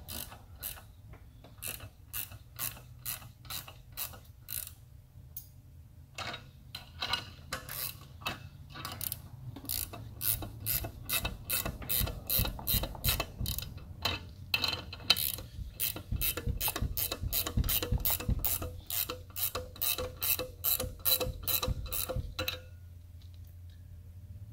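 Hand socket ratchet clicking in a steady run of a few clicks a second as the nut on a valve spring compressor is turned. The clicks pause briefly about six seconds in, come closer together and louder after that, and stop a little before the end.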